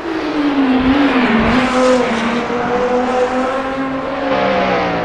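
Video-game engine sound of a Ford GT race car running on track: the engine note drops in pitch over the first second or so, then holds fairly steady.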